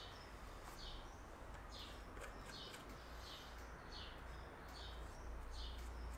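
A bird chirping over and over, short high notes about one and a half per second, over a low steady hum.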